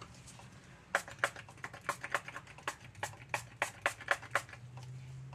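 Light, quick taps on a silicone mold full of freshly poured epoxy resin, about four a second for a few seconds, to knock air bubbles out of the resin.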